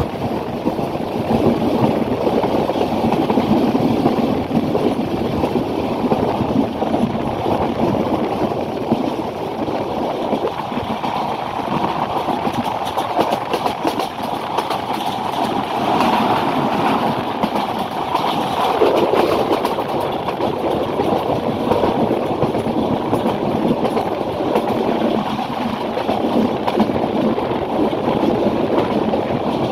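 A moving train heard from on board: the steady rumble of wheels running on the rails.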